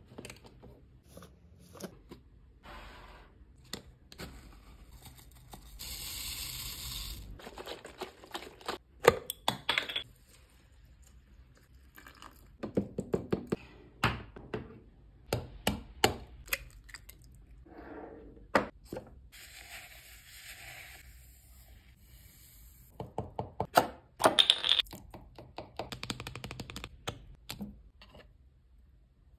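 Close-up kitchen handling sounds while ingredients go into a plastic Nutribullet blender cup: sharp clicks, knocks and quick clusters of clatter from the cup and containers. A steady rushing pour lasts about a second and a half, some six seconds in.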